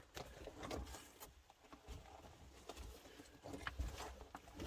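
Irregular scuffs, taps and soft low thumps of people moving over rock and handling the camera in a mine tunnel.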